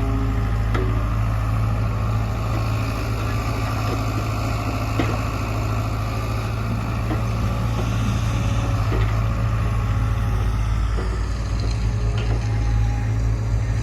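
Heavy diesel engine running steadily with a deep, even drone, with a few faint knocks scattered through it.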